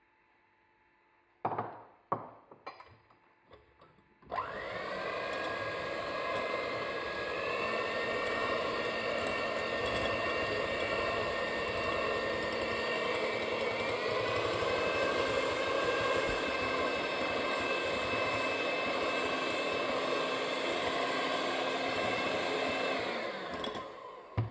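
A few knocks and clinks of bowls being handled, then a Moulinex electric hand mixer starts about four seconds in and runs steadily, beating eggs and sugar to increase their volume. Its whine rises as it spins up, steps up slightly in pitch about halfway through, and dies away shortly before the end.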